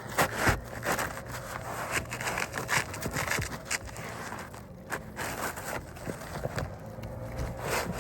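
Asphalt 3-tab shingle scraping and rubbing against the roof shingles as it is worked into place, in irregular strokes with a few sharp knocks, the loudest about half a second in.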